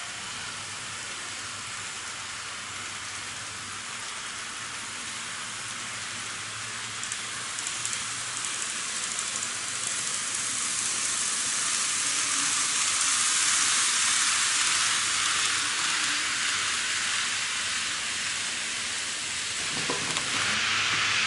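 N-gauge model train running along the track, a steady rolling hiss of wheels and motor. It swells as the train passes close, loudest a little past the middle.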